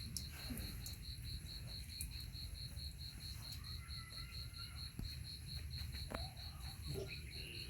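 Cricket chirping steadily, about five short high pulses a second on one note, over a low steady rumble.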